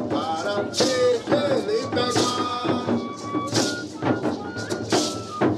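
Singing voices carrying a melody, with a shaken percussion stroke about every second and a half.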